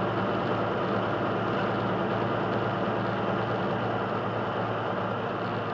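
Semi truck's diesel engine running steadily at highway speed, with a low steady hum and road and wind noise, heard inside the cab.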